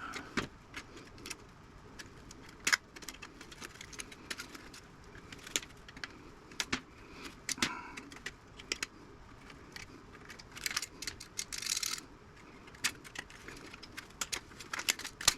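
Irregular clicks and metallic clinks of small metal parts and wire being handled and pulled loose from an old tube radio's hand-wired chassis, with a brief scraping rustle about eleven seconds in.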